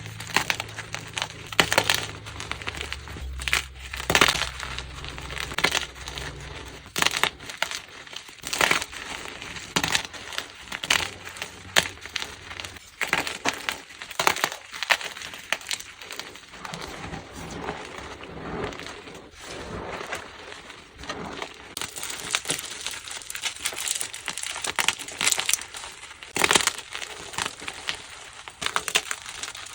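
Plain gym chalk blocks being crushed and crumbled, making a dense, irregular run of dry crunches.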